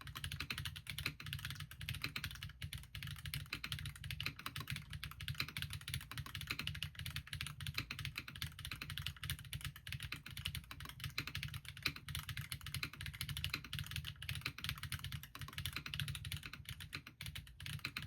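Fast, continuous typing on a Bahm Studio Droplet custom mechanical keyboard with stock, unlubed Geon RAW ZERO switches and Linworks keycaps: a dense, unbroken stream of keystrokes.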